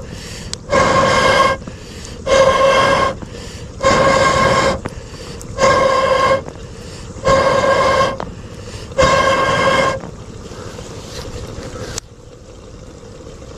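Breaths blown through a long pipe into a wood cooking fire to fan the embers. There are six strong blows about every second and a half to two seconds, each sounding a steady hooting tone from the pipe over a rush of air. The blowing stops about ten seconds in, leaving a low hiss.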